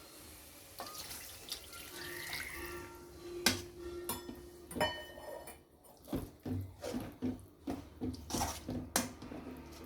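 Water poured from a glass into a kadai of cooked onion-tomato masala, followed by several sharp clinks and knocks of a utensil against the pan.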